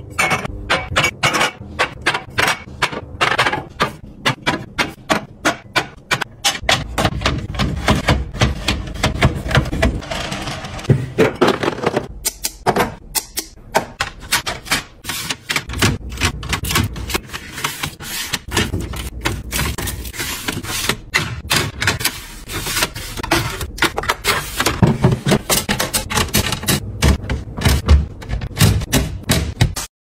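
Glass bottles, cartons and plastic organiser trays being set down on refrigerator shelves: a quick, irregular run of clinks, taps and knocks, several a second.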